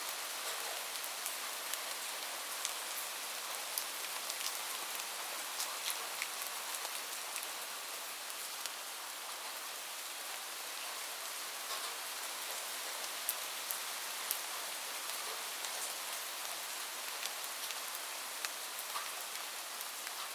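Light, steady rain falling, an even hiss with many scattered drop ticks.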